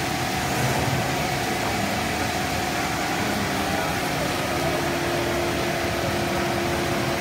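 Steady hum and whir of a running cast stretch film extrusion line's motors and blowers, with a held mid-pitched tone throughout and a lower tone joining about halfway through.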